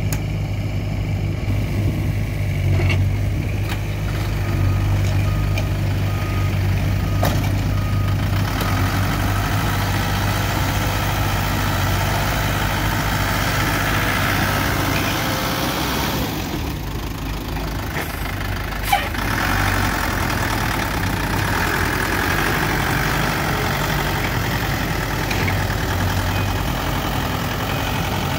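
Small dump truck's diesel engine running steadily, then easing off partway through as the truck pulls away. One sharp click about nineteen seconds in.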